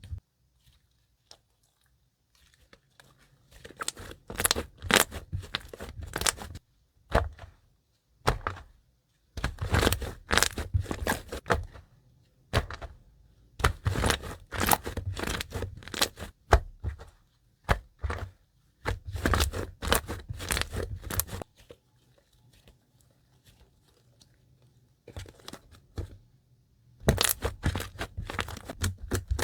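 Slime being squeezed and pressed by hand, giving bursts of crackling and popping that each last a second or two, with short quiet pauses between them.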